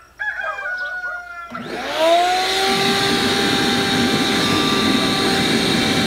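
A rooster crows once. About a second and a half in, a shop vac used as a blower starts up, its motor whine rising and settling to a steady pitch, and air forced through a perforated PVC manifold bubbles hard through the water in a plastic barrel.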